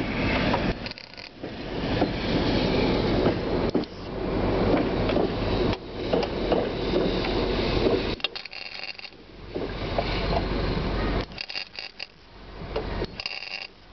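Semi-automatic MIG welder with CO2 shielding gas crackling as it lays welds on the steel sill panels of a car body. It runs for several seconds at a time, broken by short pauses between welds.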